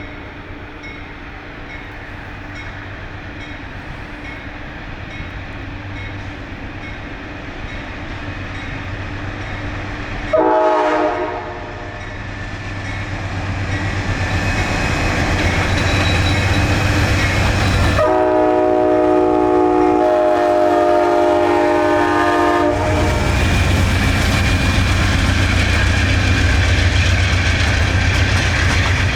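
Amtrak California Zephyr passenger train approaching and passing, growing steadily louder. Its diesel locomotive's air horn gives a short blast about ten seconds in, then a long blast of about five seconds, after which the low rumble of the train going by takes over.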